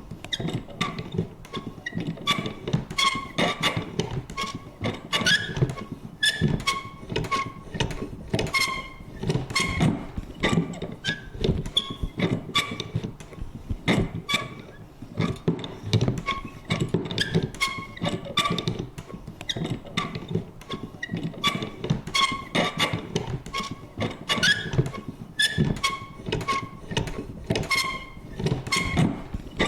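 Vintage paper punch working over and over: a quick run of irregular clicks and knocks, several a second, many carrying short, squeaky creaks from the mechanism.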